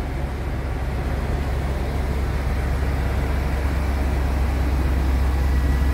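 2015 Isuzu NPR gas truck's 6.0-litre V8 petrol engine idling steadily, a deep even hum that grows slightly louder.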